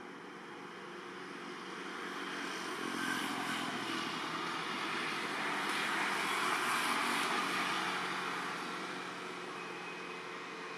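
A vehicle passing by: a rush of engine and road noise that grows over a few seconds, is loudest about six seconds in, then fades away.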